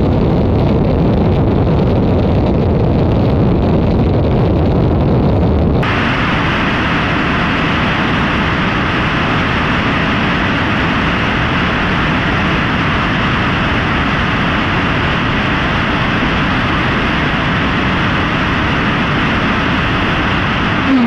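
Relativity Space Aeon R liquid-oxygen/methane rocket thrust chamber firing in a static hot-fire test: a loud, steady rushing noise that abruptly turns brighter and harsher about six seconds in.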